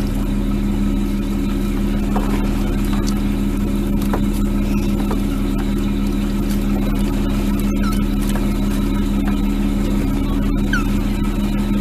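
Steady low drone of a lobster boat's engine running at an even speed, heard from on board.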